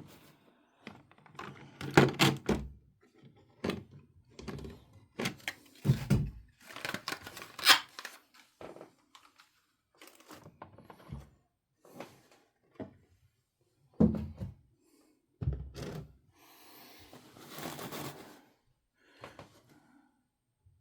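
Box and packaging being handled as a model locomotive is lifted out: irregular knocks and thunks with bursts of rustling, the longest rustle near the end.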